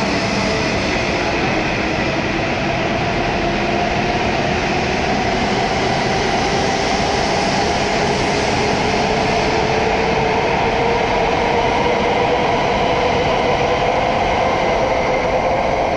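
W7-series shinkansen train pulling out and accelerating past: a steady rush of running noise with motor whines that rise slowly in pitch as it gathers speed.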